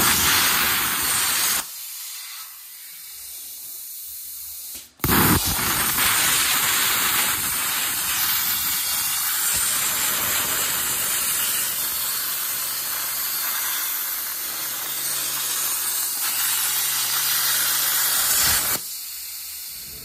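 Cutting torch hissing steadily as it cuts through quarter-inch steel plate. A short run at the start, then a long steady cut from about five seconds in that stops suddenly near the end.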